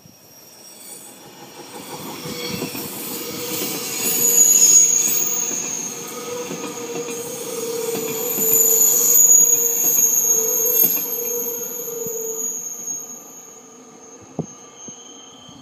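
RBS NExT electric train's wheels squealing in a curve as it runs into the station: several high, steady squeal tones over the rumble of the train, growing over the first few seconds. The squeal is loudest around 4 to 5 seconds and again from 8 to 11 seconds, and dies away after about 13 seconds, followed by a single knock.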